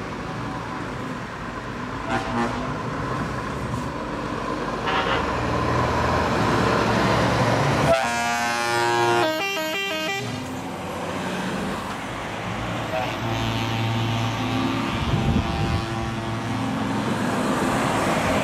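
Heavy trucks driving past one after another with engines running, sounding their air horns: a few short toots, then a long, loud horn sequence that steps in pitch around 8 to 10 seconds in.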